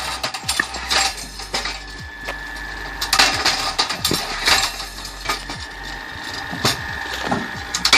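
Electric-motor wood splitter at work: many sharp cracks and the clatter of split wood pieces, irregular throughout, over a steady motor hum with a faint whine in the middle.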